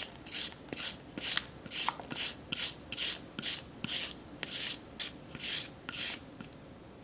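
Raw carrot being shredded on a handheld julienne grater: a regular run of scraping strokes, about two a second, that stops near the end.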